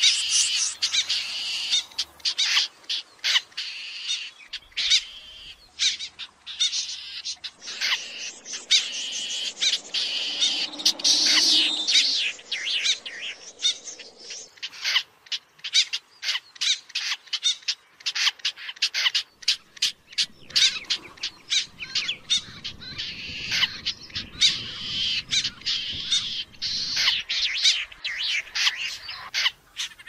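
Snipe calling: many short, harsh notes in quick succession, over and over.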